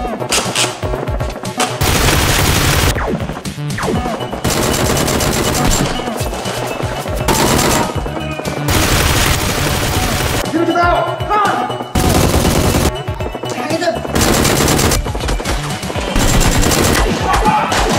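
Automatic gunfire sound effects in repeated bursts of rapid shots, each about a second long, dubbed over the blaster action, with background music underneath.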